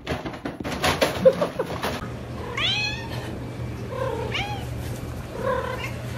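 A cat meowing three times, each call rising and then falling in pitch, over a steady low hum. Before the first meow there are a couple of seconds of knocking and clattering.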